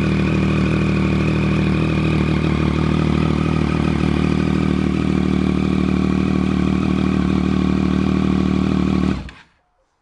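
A 2014 Triumph Street Triple R's 675 cc inline three-cylinder engine, breathing through an Austin Racing GP2R aftermarket exhaust, running steadily at idle. The sound stops abruptly about nine seconds in.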